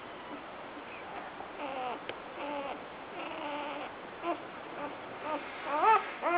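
Newborn Irish Setter puppy, two days old, whimpering in a series of short, thin squeaky cries that bend up and down in pitch, with the loudest, rising cries near the end.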